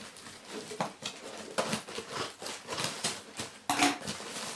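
Cardboard packaging being cut and pulled open by hand: irregular rustling and scraping, with a louder, sharper noise a little before the end.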